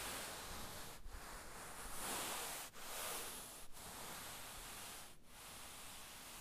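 A hand sliding and rubbing over a fabric surface: a continuous soft rustling swish, broken by four brief pauses between strokes.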